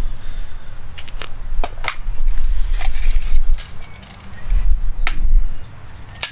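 Handling noises from working pipe wrap tape onto foam pipe insulation: scattered sharp clicks and crackles, with bouts of low rumbling handling noise.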